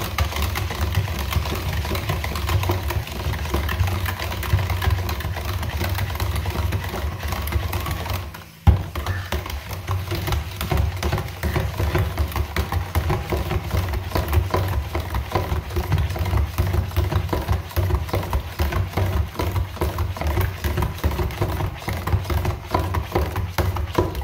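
Immersion (stick) blender running in a pitcher of citrus juice, with a steady motor hum; it cuts out briefly with a click about eight seconds in, then runs again until it stops abruptly at the end.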